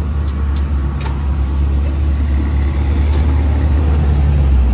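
Engine idling, a steady low rumble, with a few faint clicks over it.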